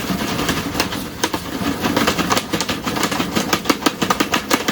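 Jiffy Pop popcorn popping in its foil pan: a dense, irregular run of sharp pops over the rattle of the pan being shaken over the heat.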